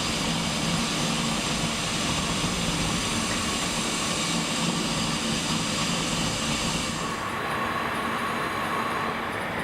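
Hitachi Seiki Super Hicell 250 CNC turning and milling centre running, with a steady machine hum under a loud hiss. About seven seconds in the hiss cuts off suddenly, leaving the lower hum and a faint steady whine.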